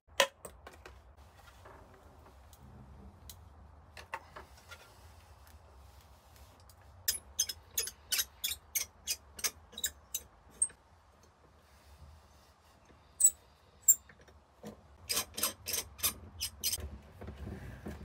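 Sharp clicks and snaps from hand tools working the end of a steel wire armoured cable and its gland. A loud click at the start, a run of about ten clicks roughly three a second, two loud single clicks, then another quick run of clicks near the end.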